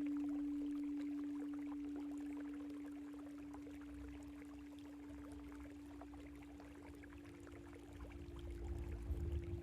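A singing bowl ringing with one steady, pure tone that slowly fades, struck just before this moment. A second, slightly higher bowl tone comes in near the end. Trickling water runs underneath.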